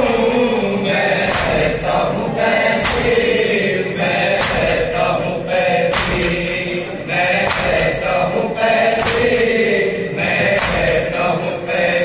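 A group of men chanting a noha, an Urdu mourning lament, in unison behind a lead singer. Sharp rhythmic slaps of chest-beating (matam) come about once or twice a second.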